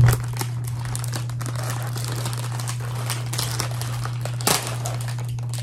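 Plastic Oreo cookie packaging crinkling and crackling as it is handled and pulled open, with a louder crackle about four and a half seconds in.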